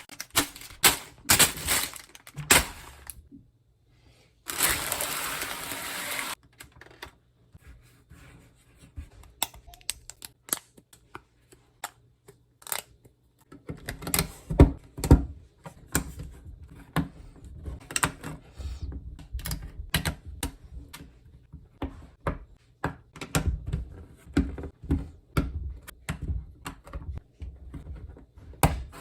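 Plastic LEGO bricks being handled and pressed together: a long run of irregular sharp clicks and taps, some heavier. About four and a half seconds in there is a rustle lasting about two seconds.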